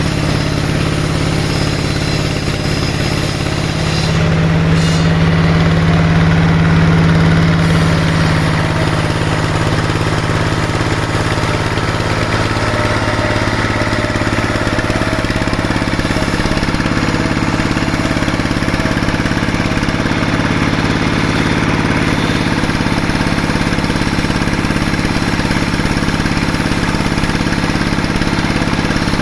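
Sawmill machinery running with a steady engine-like drone. It grows louder about four seconds in, and its pitch shifts again around thirteen seconds.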